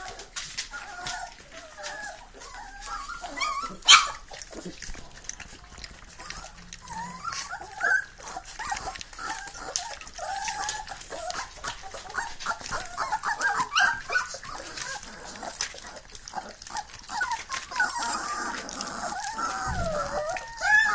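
Three-week-old Fila Brasileiro puppies eating raw minced meat from plates: high wavering whimpers and squeals over many small wet smacking and lapping clicks. One sharp knock about four seconds in.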